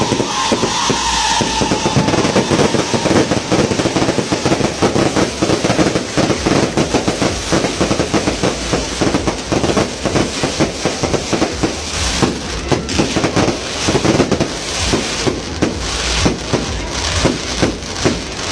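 Fireworks going off in a dense, rapid barrage of crackling and popping bursts, with a falling whistle fading out in the first second or so. From about two-thirds of the way in, the bangs come more spaced out and sharper.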